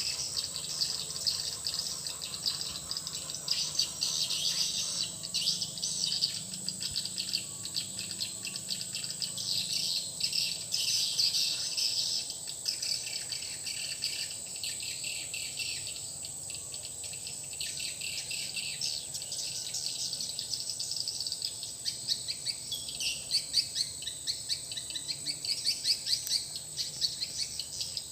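Dense, rapid swiftlet twittering, the kind of call sound used to lure swiftlets to a swiftlet house, running on over a steady high-pitched tone.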